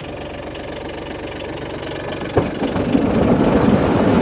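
Small work machine's engine idling steadily, then a sharp clunk about two and a half seconds in, after which the engine runs louder and rougher as if under load.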